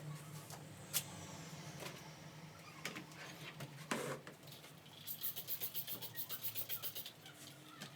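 Household handling noises: a few sharp knocks, then a quick rhythmic scraping of about eight strokes a second for some two seconds, over a low steady hum.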